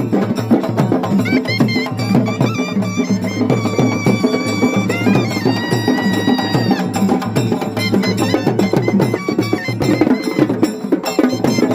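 Traditional Indian procession band music: dense, fast drumming with a high-pitched wind instrument playing held notes and short phrases over it.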